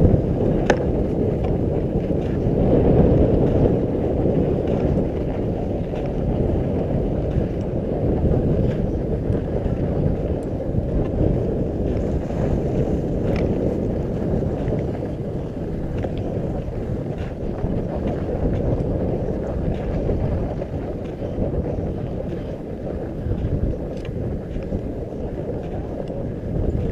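Wind rushing over a GoPro action camera's microphone during a downhill ski run, mixed with the hiss of skis sliding over snow: a steady low rumble with a few faint clicks.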